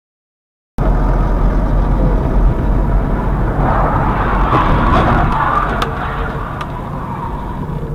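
Car driving, heard from inside its cabin: a steady low rumble of engine and tyre noise that starts abruptly just under a second in, with a few light clicks around the middle.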